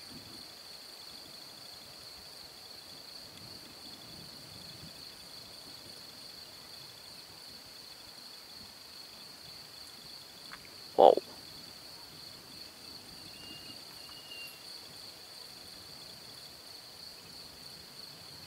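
Steady high-pitched chirring of crickets in the evening countryside, with one short, loud call about eleven seconds in.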